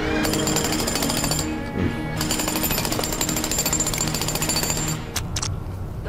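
Jackhammer hammering in two runs: about a second, a short break, then about three seconds more, with dramatic score music underneath.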